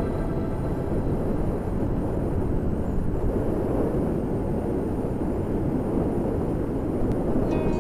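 Steady wind rush and road noise from a moving motorcycle, with the engine's drone underneath.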